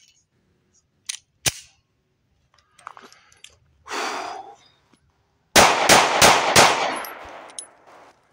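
Ruger Max 9 Pro 9mm micro-compact pistol: a couple of sharp handling clicks as the magazine is smacked home after a failure to feed, then four quick shots about a third of a second apart, each ringing out and fading.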